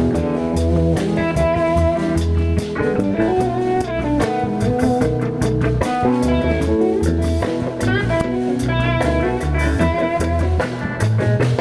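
A blues band playing an instrumental passage: guitar lines over a bass line and a steady drum-kit beat.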